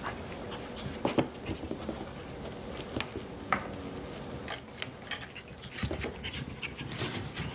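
Seven-week-old Coton de Tulear puppies at play: scattered light knocks and scuffles of paws and toys on a pad.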